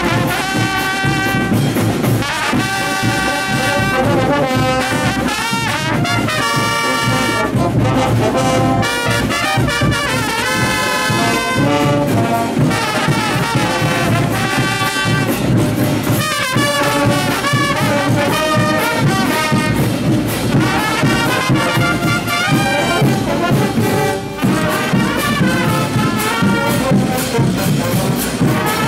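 Brass band of trumpets and baritone horns playing a Morenos dance tune loudly, with drums keeping the beat underneath.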